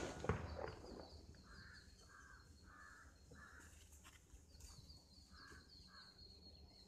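The last of a firecracker blast dies away, then a crow caws faintly: four calls in an even row, a pause, and two more.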